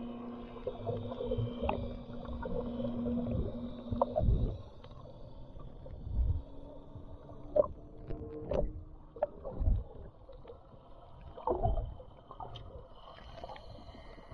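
Muffled underwater sound picked up by a camera under the surface: a steady motor drone carried through the water stops about four seconds in, and a few deep thumps and swishes of water moving against the camera are heard throughout.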